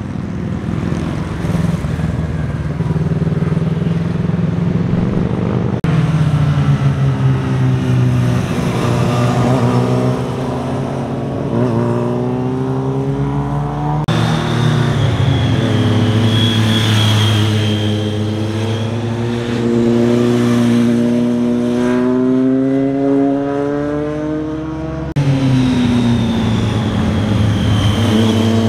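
Several motorcycles passing one after another through tight bends, their engines revving up and easing off so the pitch keeps rising and falling. The sound changes abruptly three times as one group of bikes gives way to the next.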